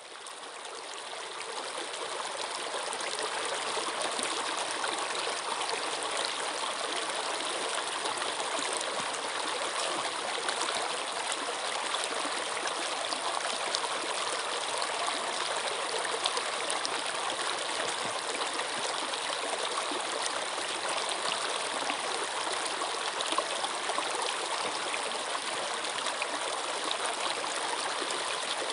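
Flowing stream water running steadily over rocks, a continuous rushing with small splashes and trickles, fading in over the first few seconds.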